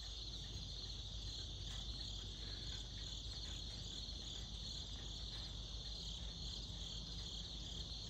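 Crickets chirping in a steady, high-pitched chorus with a faint pulsing.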